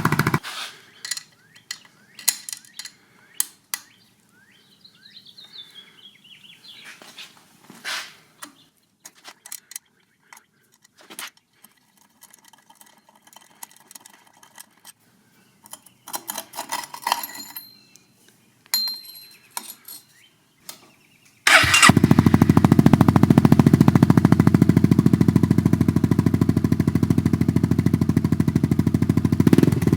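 Scattered light clicks and knocks for about twenty seconds, then an abrupt switch to a Honda Forza 300 scooter's single-cylinder engine running steadily and loudly.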